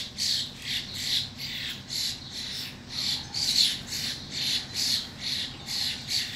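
Birds squawking during a fight: a fast, steady series of short, harsh calls, about two or three a second.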